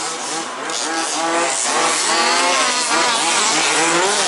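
Several radio-controlled race buggies running on the track, their motors revving up and down over one another.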